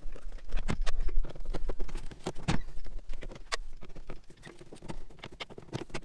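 Irregular clicks, taps and knocks of a screwdriver and hands working the screws and plastic trim of a tractor cab's floor access panel.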